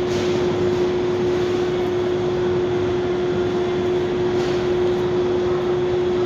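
Steady mechanical drone and rushing air noise of a store parking area, with one constant low-pitched hum over it.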